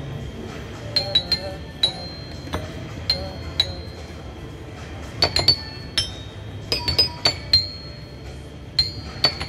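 A wall-mounted metallophone's metal bars struck with mallets, picking out a melody of bright ringing single notes in quick little groups of two to four, with short pauses between the groups.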